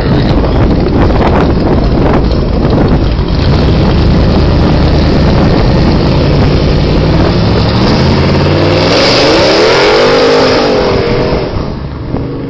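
Car exhaust through a GMMG cat-back system under acceleration, the engine note climbing in pitch in steps, then swelling and falling away and fading near the end. Rough wind noise on the microphone covers the first few seconds.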